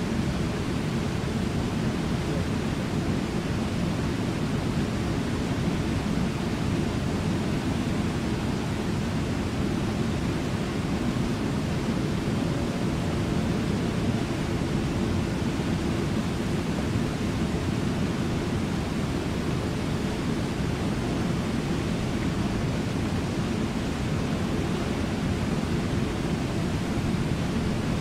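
Steady rush of water from Brooks Falls and the whitewater rapids below it, a deep, even roar that never lets up.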